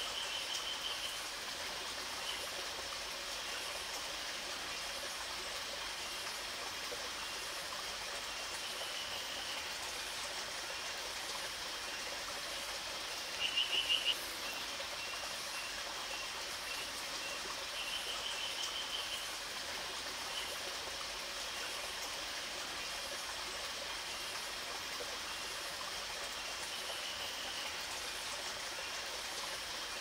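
Steady rush of running water, with a frog's short pulsed call near 3 kHz repeating every few seconds; the loudest, about halfway through, is a quick run of about four notes.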